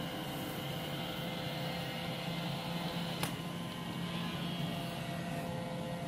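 iRobot Roomba i7 robot vacuum running on carpet: a steady motor and suction hum with a few constant tones, and one short click about three seconds in.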